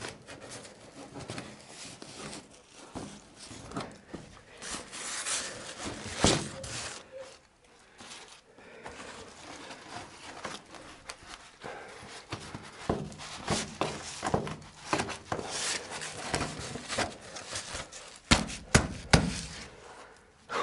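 Irregular clatter, scraping and knocks of things being handled, with a loud knock about six seconds in and a quick run of three or four sharp knocks near the end.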